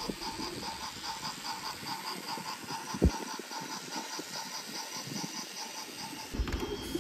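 Battery-powered Brio toy train whirring along wooden track with an even, rapid ticking while it tows a wooden engine. A single sharp click comes about three seconds in.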